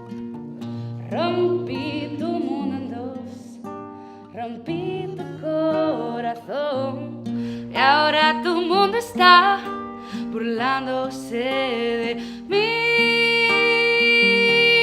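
A singer with guitar accompaniment, the voice wavering through melodic phrases over plucked-string notes. A long note is held from about two-thirds of the way in.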